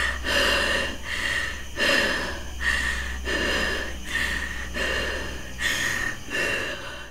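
A woman breathing hard, panting in and out a little faster than once a second, with a low steady hum underneath.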